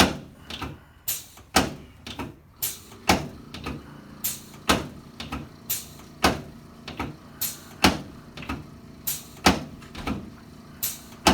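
A regular series of sharp knocks or clacks, about two a second, each with a short low ring.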